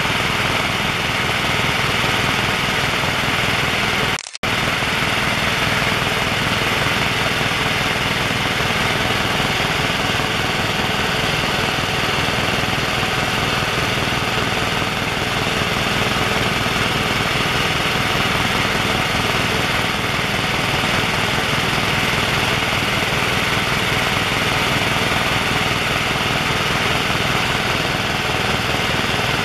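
Loud, steady cabin noise of a Helijet Sikorsky S-76 helicopter in flight: turbine and rotor drone under a steady high whine. The sound cuts out for a split second about four seconds in.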